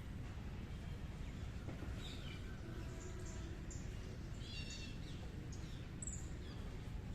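Wild birds calling: short high chirps and quick descending whistled notes, several scattered through, with a busier flurry of chirps just after the middle, over a steady low outdoor background noise.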